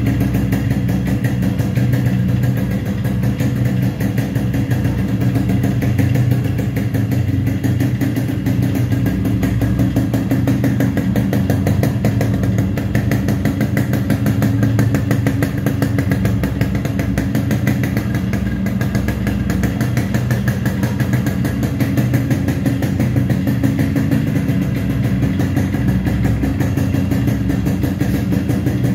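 2001 Yamaha RXS 115's single-cylinder two-stroke engine idling steadily, with an even, rapid firing beat from the exhaust.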